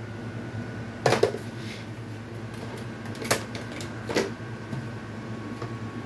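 Steady low machine hum with a faint high tone, broken by three short clicks or knocks, about one, three and four seconds in.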